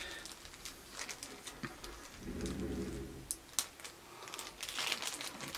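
A small plastic bag of wooden canvas keys being handled: scattered light clicks and crinkles as it is opened, with a short low hum about two seconds in.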